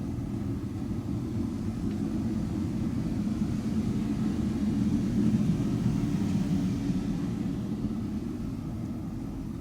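Low droning rumble of a passing engine, swelling to its loudest a little past halfway and then easing off.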